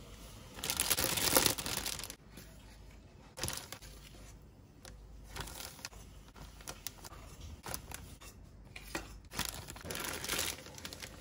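Clear plastic bag crinkling and rustling in irregular bursts as flour is spooned into it and the bag is gathered and closed with a plastic clip, with a few sharp ticks between; the loudest rustle is about a second in.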